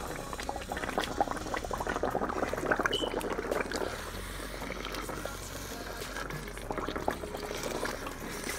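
Thick ndole stew of bitterleaf and ground peanuts bubbling in a pot while a spoon stirs through it: a wet crackle of many small pops, busiest in the first few seconds and lighter after.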